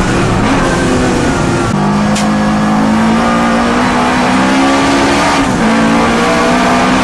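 Alfa Romeo Alfasud Sprint's flat-four engine under hard acceleration on track, heard from inside the cabin. The pitch climbs through the revs, and it changes up a gear about two seconds in and again near the end.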